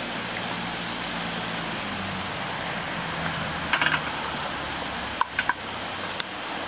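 Steady rush of a stream flowing over rocks. A low hum fades out after about three seconds, and a few short clinks come around four and five seconds in.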